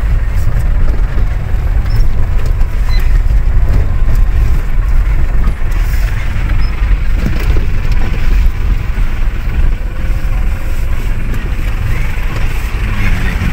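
Vehicle driving over a rough dirt road, heard from inside the cabin: a steady, loud, low rumble of engine and tyres.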